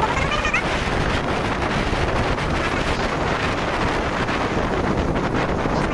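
Steady wind buffeting the microphone of a motorcycle riding at speed, a dense rushing noise with the bike's road and engine noise buried underneath.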